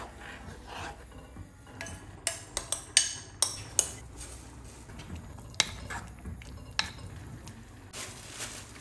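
Metal kitchen utensils clinking against a pot and dishes during cooking. There is a quick run of sharp clinks about two to four seconds in, then a few single clinks later.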